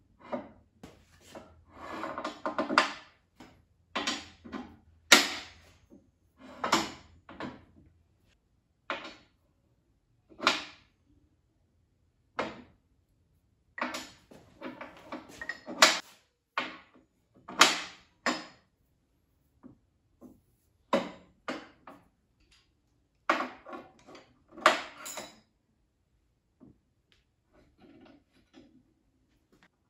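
Square steel tubing being shifted and set down on a steel welding table top: a string of separate clanks, knocks and scrapes of steel on steel, some sharp and some drawn out, with short pauses between them.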